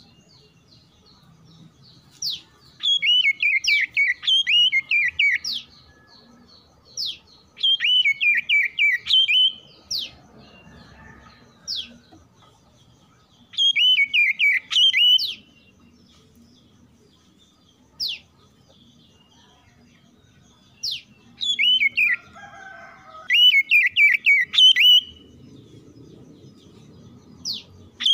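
Oriental magpie-robin singing: several loud bursts of two to three seconds each, made of rapid, fluty whistled notes sliding downward, with a few single sharp down-slurred whistles in between. Fainter, lower chattering calls come twice between the bursts.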